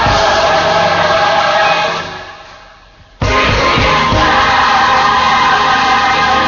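Gospel choir and band holding a loud sustained chord that dies away about two seconds in. After a short lull they come in again suddenly with another held chord, which starts to die away near the end.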